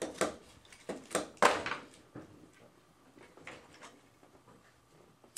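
Handling noise from a microphone being fitted back together: a handful of short knocks and clicks, the loudest about one and a half seconds in, then a few faint ticks.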